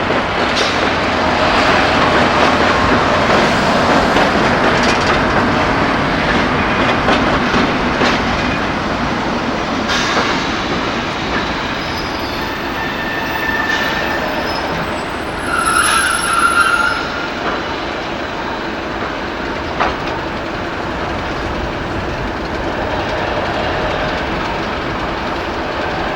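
Freight train rolling past, its wagons rattling over the rails in a steady clatter, with a brief high wheel squeal about two-thirds of the way through.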